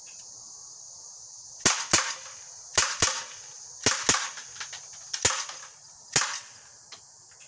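Umarex SA10 CO2 blowback pellet pistol firing about eight sharp shots in a quick string, some in close pairs. The CO2 charge is partly spent, so the shots are weaker than when fully charged.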